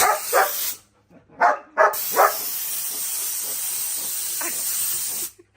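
Compressed-air blow gun hissing in bursts, the longest about three seconds. A German Shepherd barks at it several times.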